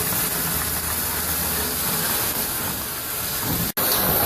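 Suction hose drawing sludge out of a fire truck's water tank: a steady rushing hiss over a low motor hum, cutting out for an instant near the end.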